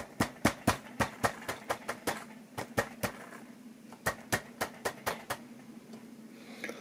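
Quick, irregular small clicks, about four a second, as bare feed-wire ends are touched and tapped against the model railway track rails; they pause briefly a little after three seconds and stop about five seconds in. A steady low hum runs underneath.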